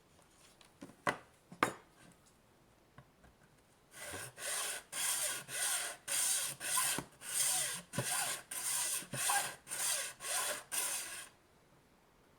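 Hand hacksaw cutting into the plastic casing of a power adapter. A couple of light clicks come first, then about four seconds in come around fourteen quick back-and-forth saw strokes, roughly two a second.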